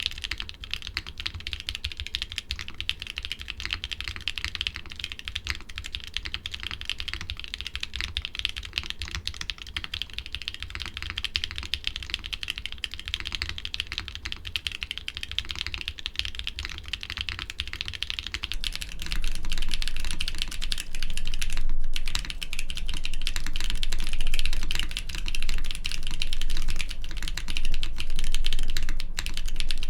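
Continuous typing on a mechanical keyboard fitted with doubleshot keycaps: a dense run of key clacks. About two-thirds of the way in the recording switches microphone, and the typing becomes louder and fuller in the low end.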